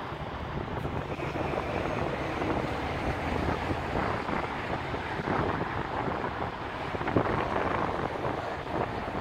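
Low, steady rumble of a heavy-haul semi tractor's diesel engine pulling an oversized bridge-span trailer slowly through a tight turn, mixed with wind buffeting the microphone.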